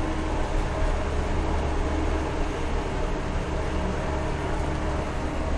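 Scania K 124 bus's 12-litre six-cylinder diesel engine running steadily under way, with a deep drone, a steady hum and road noise, heard from inside the cab.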